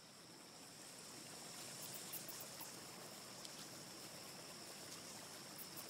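Faint ambient forest soundscape fading in: a soft, even rush like a stream or breeze under a steady high-pitched insect tone, with a few tiny high chirps about two seconds in and again near the end.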